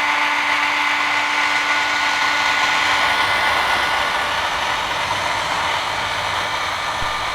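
Handheld hair dryer running steadily, blowing hot air: a rush of air with a motor whine over it. About three seconds in, one low hum drops out and a low rumble of air grows.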